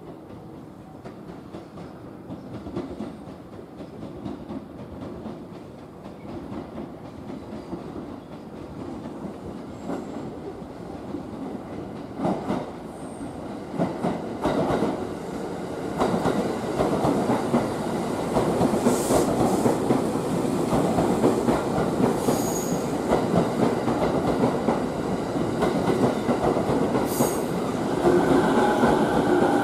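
Electric train approaching and drawing into the station, growing steadily louder, with wheels clattering over rail joints and points. A squealing tone sets in near the end.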